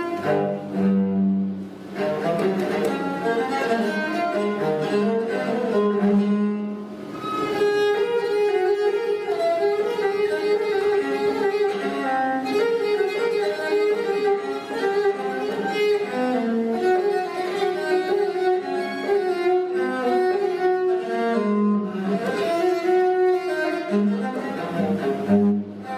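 Solo piccolo cello playing an unaccompanied baroque toccata: a continuous run of quick bowed notes, with brief breaks about two seconds and six and a half seconds in.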